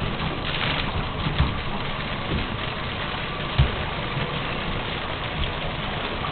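Bathtub faucet running, a steady hiss of water falling into the tub, with a few soft low thumps.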